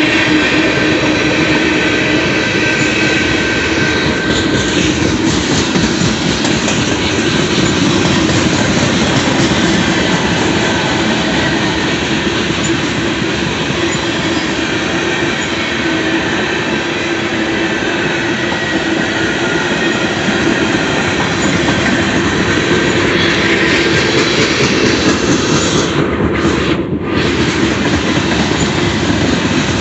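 Manifest freight train rolling past at close range: steel wheels of the freight cars clacking over the rails, with some wheel squeal, at a loud, steady level.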